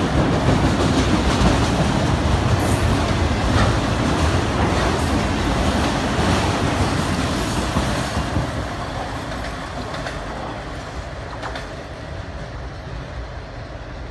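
Empty autorack freight cars rolling past on their wheels, a dense rumble of wheels on rail with scattered sharp clicks. The sound fades steadily from about eight seconds in as the tail of the train passes and draws away.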